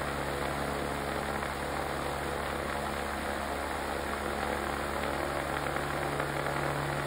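Polaris 1,000 cc four-stroke two-cylinder ATV engine, converted for aircraft use, running steadily on a test stand.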